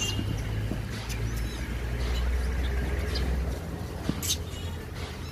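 A troop of rhesus macaques squabbling over bananas: thin high squeaks and a couple of short shrill squeals, the loudest about four seconds in, over a low steady rumble that fades out past the middle.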